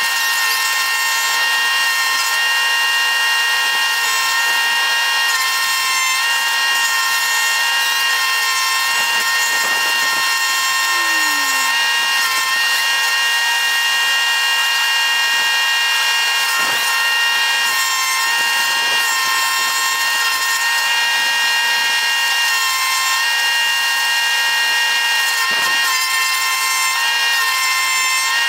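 Chainsaw engine running at a steady high pitch, with a few faint knocks.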